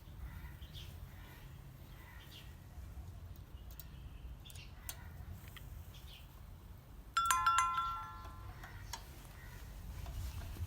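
Light metallic clicks and taps of drum brake hardware being handled, then about seven seconds in a metal part is struck or dropped and rings for about a second.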